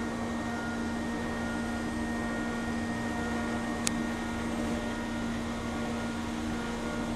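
CNC router running with a steady mechanical hum, not making its loud shrieking sound here, with a single sharp tick about four seconds in.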